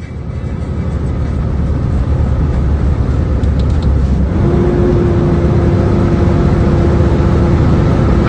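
Heavy truck driving along the highway, heard from inside the cab: a steady low engine and road rumble that grows louder over the first couple of seconds, with a steady hum joining about halfway through.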